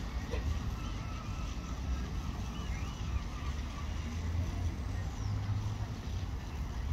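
Steady low rumble of wind buffeting the microphone, with a few faint bird chirps.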